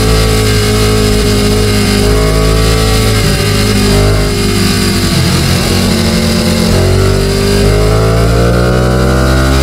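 Ducati Panigale 899's L-twin engine under way, heard through a helmet-mounted camera. The engine's pitch sags around the middle, then rises steadily toward the end as the bike accelerates.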